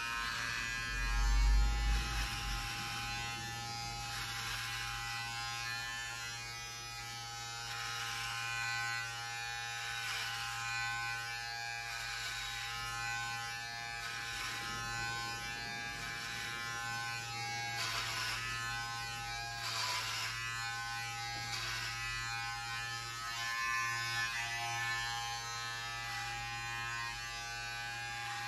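Electric hair clippers running with a steady buzz, the tone wavering briefly a few times.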